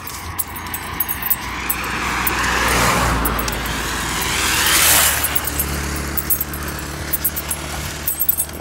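A motor vehicle passing close by on the road: its noise swells over a few seconds to a peak about five seconds in, then fades, leaving a low steady hum. Faint clinking is heard near the start and end.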